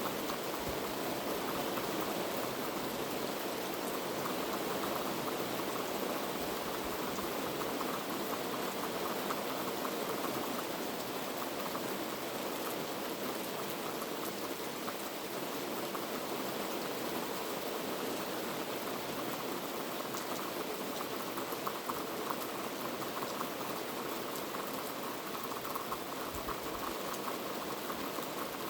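Heavy rain falling steadily, a dense even hiss of rain with many fine drop patters.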